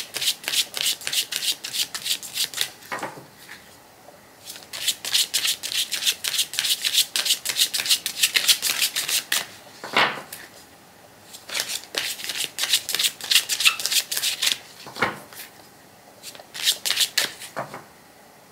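A deck of Lenormand cards being shuffled by hand: quick runs of card flicks, many a second, in four or five bursts with short pauses between them, and a few stronger single strokes in the pauses.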